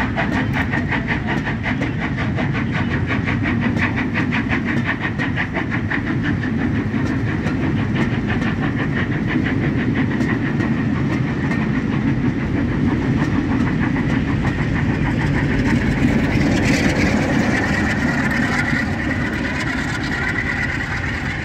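Railway carriages rolling slowly past, their wheels clicking steadily over rail joints and pointwork; the clicking thins out about halfway through. Near the end the Class 47 diesel-electric locomotive on the rear of the train passes, its Sulzer twelve-cylinder engine running.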